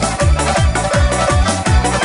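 Upbeat electronic dance-pop music with a steady kick drum beating about four times a second under a busy synthesizer backing.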